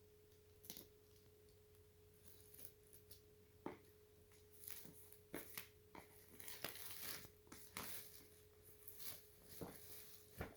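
Faint rustling, crinkling and clicks of packaging being handled, in scattered short bursts that grow busier about halfway through, over a steady faint electrical hum.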